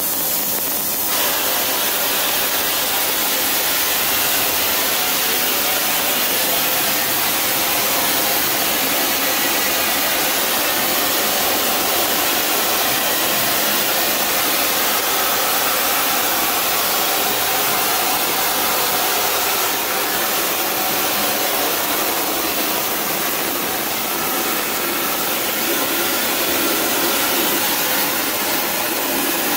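Gas-fed flame spray gun running with a steady loud rushing hiss while spraying titanium powder as a top coat over a zirconia thermal-barrier coating.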